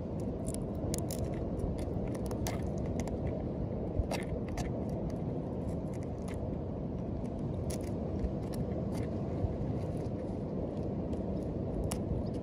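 A knife blade scraping and clicking against a turtle's shell as moss and crusted growth are scraped off: irregular short scratches and ticks, over a steady low rumble.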